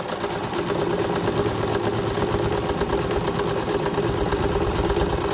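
Singer SM024 electric sewing machine running steadily at speed, stitching a seam through a piece of cloth: a rapid, even clatter of the needle mechanism over a steady motor hum. It is a test seam with a freshly set needle.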